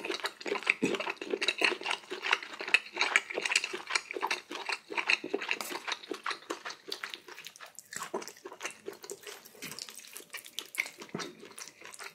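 Close-miked wet eating sounds of someone eating ramen: a dense, irregular run of chewing smacks and mouth clicks.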